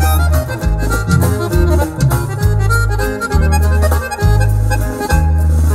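Instrumental break of a norteño corrido: an accordion plays the melody over a bass line of long, evenly spaced notes.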